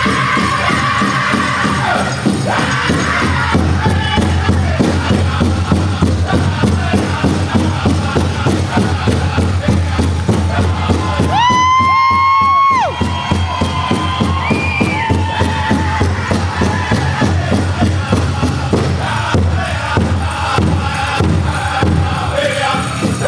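Powwow drum group singing a chicken dance song over a fast, steady beat on the big drum, with the crowd around it. About halfway through, one long high note rises, holds for about a second and falls away.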